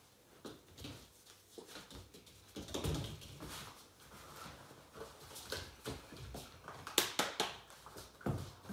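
German Shorthaired Pointer puppy scrambling on a wooden floor and mat as it grabs and mouths training dummies: a run of irregular clicks, taps and soft thumps, the sharpest clicks about seven seconds in.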